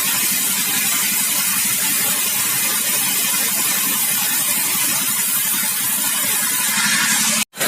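Sawmill machinery running steadily: an engine hum under a steady hiss. It cuts out abruptly for a moment near the end.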